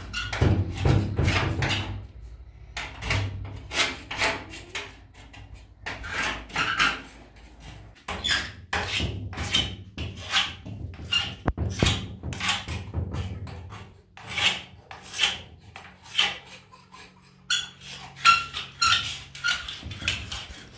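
Repeated rasping strokes of something scraped or rubbed by hand over a rough surface, about one to two a second in uneven runs with short pauses.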